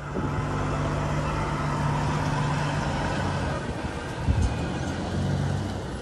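Heavy truck's diesel engine idling close by, a steady low-pitched running note, with a thump about four seconds in.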